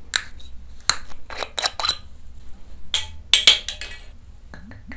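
A green glass soju bottle being opened: a string of sharp clicks and clinks as fingers flick its neck and the screw cap is twisted off. Near the end soju starts glugging out of the bottle, each glug rising in pitch.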